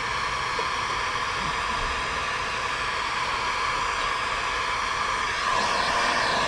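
Electric heat gun blowing steadily while heating vinyl tail-light tint film so it lays down flat; it gets a little louder about five and a half seconds in.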